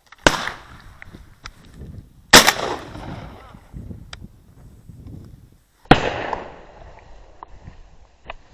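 Three shotgun shots, about two and then three and a half seconds apart, each followed by a short echo that dies away, with faint ticks between them.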